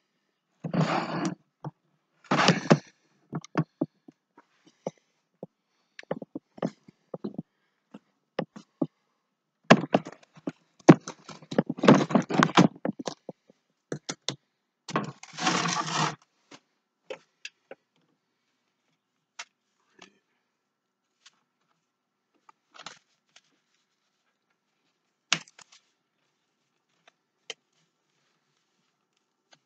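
Kitchen handling noises: scrapes, knocks and clicks as pots and utensils are moved about, in several short bursts of clatter, thinning to scattered single clicks after about sixteen seconds.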